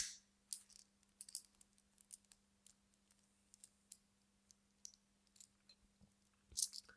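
Faint, irregular small metallic clicks and scrapes of a small screw being loosened on a lock, with a slightly louder pair of clicks near the end.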